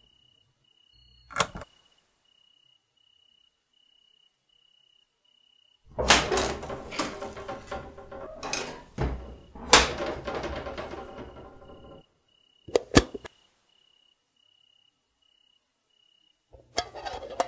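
Kitchen cupboard doors opening and stainless-steel tins and lids clanking as someone rummages through the shelves: one click, then several seconds of clatter with sharp knocks, two more knocks and a last rattle near the end. A faint cricket chirps in regular pulses in the quiet stretches.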